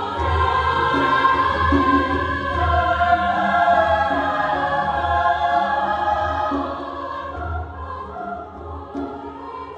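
A large women's choir singing a slow, sustained choral piece with cello accompaniment underneath. The singing grows softer about two-thirds of the way through.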